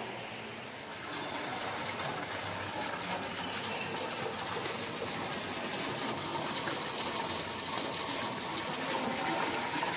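Small garden fountain: water spilling into a pond with a steady splashing that comes up about a second in.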